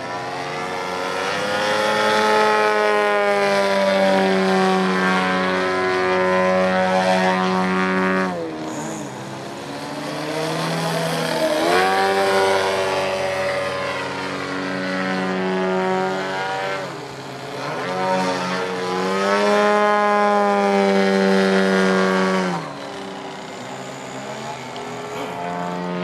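Engine and propeller of an Ultimate 10-300S model aerobatic biplane in flight, running in surges: pitch and loudness rise and fall as the throttle is opened and closed through the manoeuvres, with sharp drops about eight seconds in and again a few seconds before the end.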